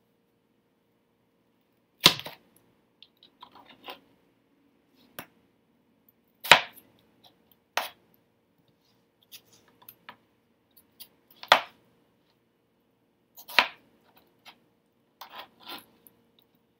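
A chef's knife cutting cantaloupe, the blade knocking down onto a plastic cutting board in irregular sharp chops, about five loud ones with softer taps between.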